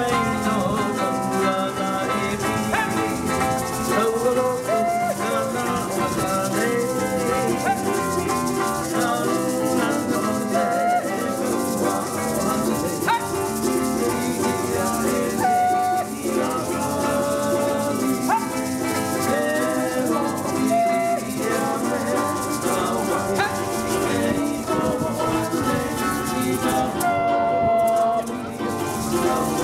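Music with plucked strings and a steady shaker rhythm, with melody notes that slide in pitch.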